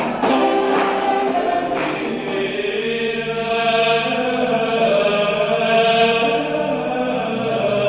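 The tail of a rhythmic, percussive piece of music in the first two seconds gives way to a choir chanting in long held notes.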